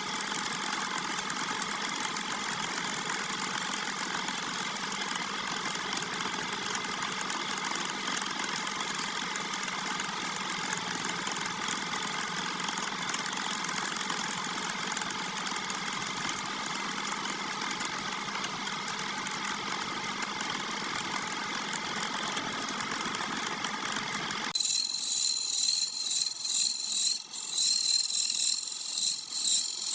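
Wood lathe running steadily, its motor giving a whine with several steady tones. Near the end the sound changes abruptly to a much louder, hissing sound that comes in uneven pulses.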